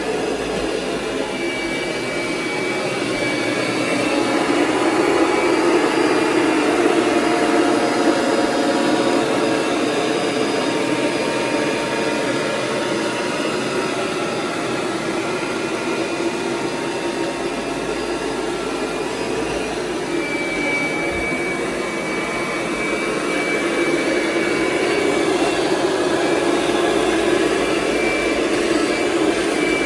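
Kirby G5 upright vacuum running with its carpet shampoo system fitted and the self-propelled drive engaged: a steady motor drone that swells and eases slowly in loudness.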